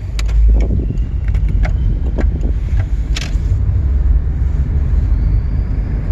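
Steady low rumble of a car driving along the road at moderate speed, with scattered sharp clicks over it.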